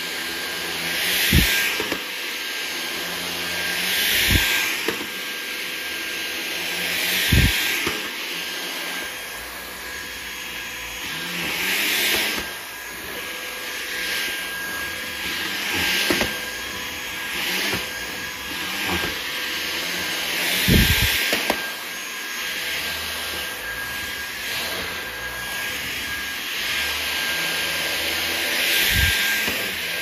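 Levoit stick vacuum running on a shaggy rug, a steady motor whine with its suction hiss swelling and fading with each push-and-pull stroke every few seconds. There are a few dull knocks along the way.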